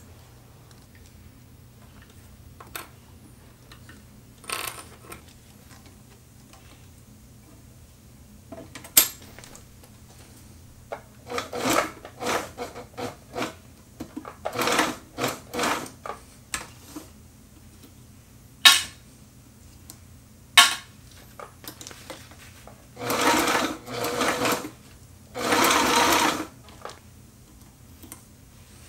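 Sailrite straight-stitch sewing machine stitching binding down onto a bag in short stop-start runs, with a few sharp clicks between them. Near the end come two longer runs of stitching.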